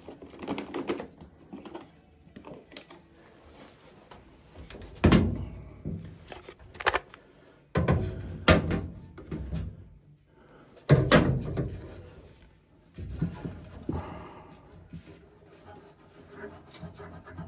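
Irregular knocks, clunks and rubbing as tools and furnace parts are handled, with the loudest knocks about five, eight and eleven seconds in.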